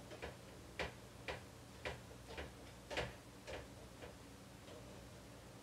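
A run of light, sharp clicks, about two a second and slightly uneven, over a faint steady hum.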